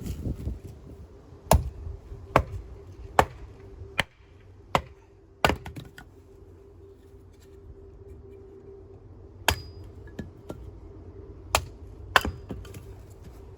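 Firewood being handled for lighting a wood stove: a string of sharp wooden knocks, six in the first few seconds and three more near the end, over a faint steady hum.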